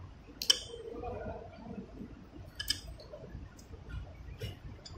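Sharp plastic clicks and handling noise as a white multi-pin wiring connector on an electric scooter is worked apart by hand. The loudest click comes about half a second in, another near the middle, and a few lighter ticks follow.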